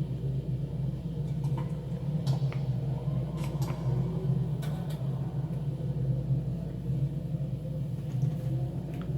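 Steady low rumbling ambience from an animated film's sound-effects track, with a few faint light clicks and taps scattered through it.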